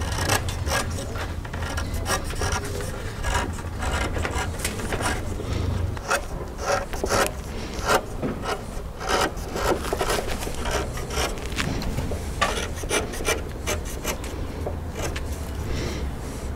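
Knife blade paring the cut end of a green hazel branch: a run of short, irregular scraping strokes as small shavings are taken off to bevel the sharp edge around the end grain.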